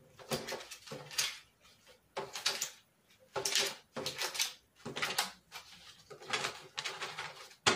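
Polymer Canadian $20 banknotes rustling and slapping as they are counted out by hand onto a table, a short crisp burst about every second.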